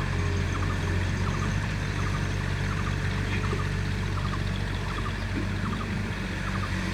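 Heavy diesel engine of the excavator and dump truck running at a steady speed, with no revving or change in load.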